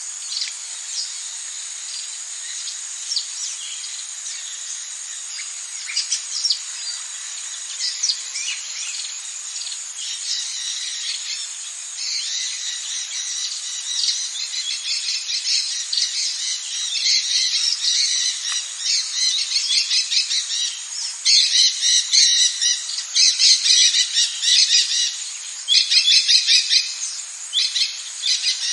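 Tropical rainforest ambience: a steady high insect drone under scattered bird calls. About halfway through, the calls build into loud, rapidly repeated squawking and chattering bouts that come in runs of a second or two.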